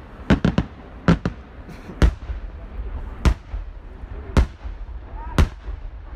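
Aerial fireworks shells bursting in a series of sharp bangs: a quick cluster of three just after the start, then single bangs about once a second.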